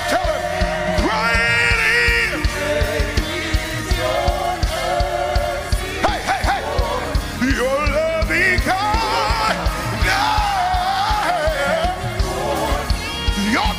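Live gospel praise-break music: a church band with a fast, driving drum beat, and a lead singer's voice singing over it.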